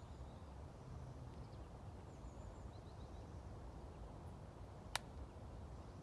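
Quiet outdoor ambience: a low steady background rumble with a few faint, short bird chirps, and a single sharp click about five seconds in.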